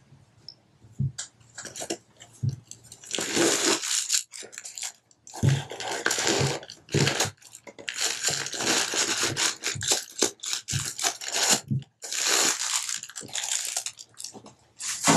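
Crumpled paper stuffing being pulled out of new sneakers, rustling and crinkling in several long stretches, with short soft knocks of the shoes against a wooden table in between.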